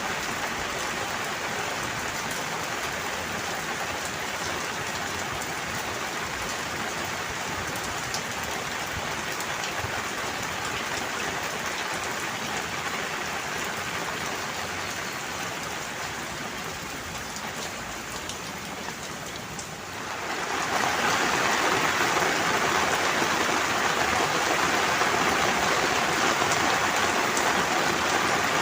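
Steady rain falling; about twenty seconds in it turns suddenly louder, a heavier downpour.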